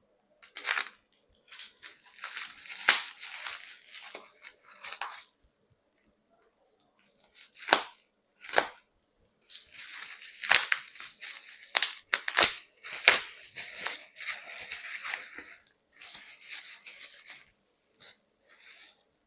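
A small parcel box being unpacked by hand: packing tape and wrapping tearing and crinkling in irregular bursts, with a few sharp clicks and a pause of about two seconds near the middle.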